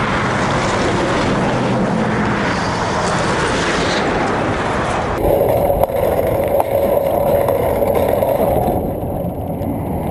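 Wind rush and road noise on a GoPro Hero2 riding on a moving bicycle, with freeway traffic beside it. About five seconds in the sound changes abruptly at an edit, to a steadier, lower hum.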